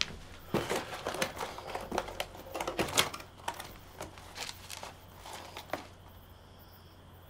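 A person eating bread hurriedly: irregular crackling and rustling clicks for about five seconds, stopping near the end, over a low steady hum.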